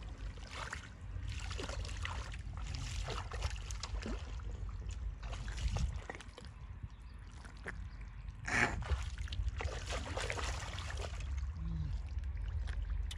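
Water sloshing and splashing in repeated, uneven surges, with a louder splash about eight and a half seconds in, over a steady low rumble.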